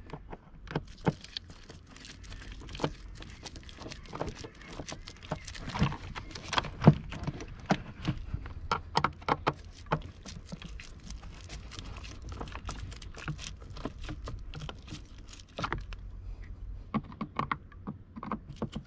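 Screwdriver doing up a screw on a plastic air filter housing: irregular light clicks and ticks from the tool and the plastic, with one sharper click about seven seconds in.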